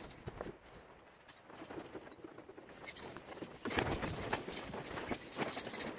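Handling noises of a steering wheel being fitted onto the top of a freshly rebuilt Fordson Dexta steering column: small clicks at first, then a busier run of light knocks, scrapes and rustling from a little past halfway.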